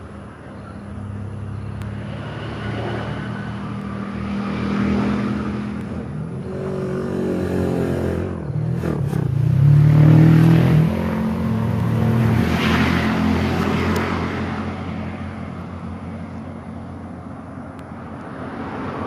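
Motor vehicle engines passing close by, the sound swelling to its loudest about ten seconds in, rising again a little later, then fading.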